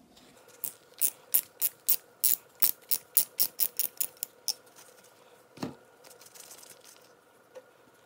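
Ratchet wrench clicking as a socket turns out the brass return-line fitting of an oil-burner fuel pump, the clicks coming quicker as it goes, then a single knock.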